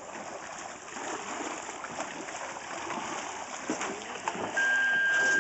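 River water rushing and splashing around a plastic kayak as it slides off the bank into a fast, churning riffle. Near the end a steady single-pitched electronic beep starts and holds.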